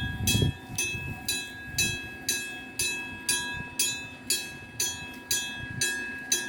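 Japanese level-crossing warning bell ringing, about two strikes a second, each a bright metallic ring.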